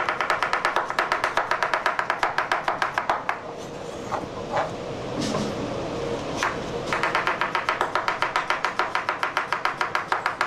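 A chef's knife chopping very fast on a cutting board, an even run of about seven strikes a second with a slight ringing to each blow. It stops for a few seconds partway through, with only a couple of single strikes, then starts again.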